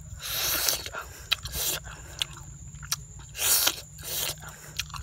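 Close-up chewing of a handful of rice eaten by hand: irregular wet bursts of mouth noise with short sharp clicks between them.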